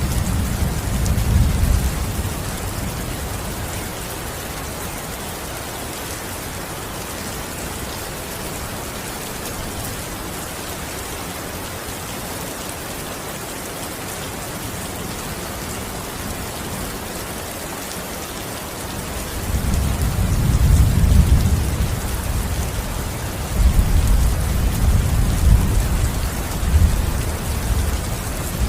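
Steady heavy rain falling, an even hiss. Low rumbles swell in at the start, again about two-thirds through, and run on near the end.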